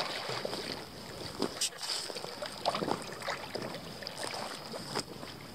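Wirehaired vizsla wading into a pond and swimming, with irregular water splashing and sloshing around the dog.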